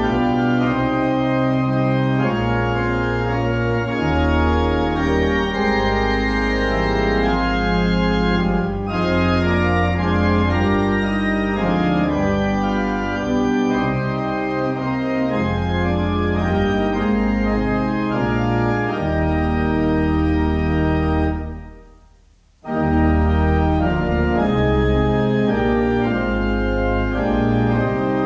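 Organ playing a hymn tune in slow, held chords over a deep bass. Near the end it dies away at the close of a verse and then starts again for the next verse.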